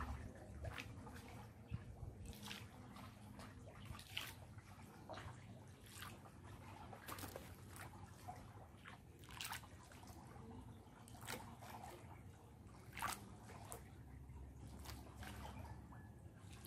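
Faint water trickling and sloshing, with small splashes and drips every second or two.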